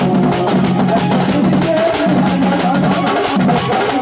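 Loud dance music with a fast, even drum beat and a melody line, played through a DJ sound system's horn loudspeakers.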